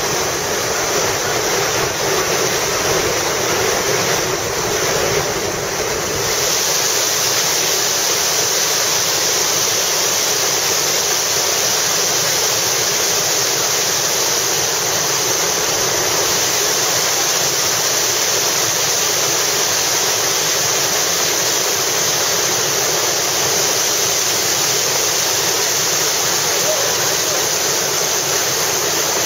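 Loud, steady rush of whitewater rapids: churning river water through a class-rapid drop, with no let-up.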